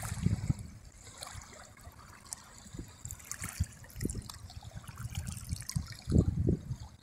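Shallow water lapping and trickling against a sandy, pebbly shore, with irregular low bumps, the strongest about six seconds in.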